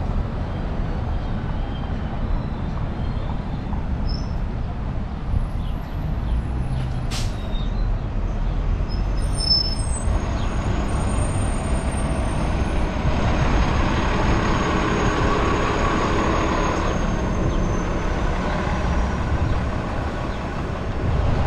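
Street traffic with a steady low rumble; a large vehicle passes close by, loudest from about 13 to 19 seconds in, with a faint high whine. A few short high squeaks sound between about 4 and 10 seconds in.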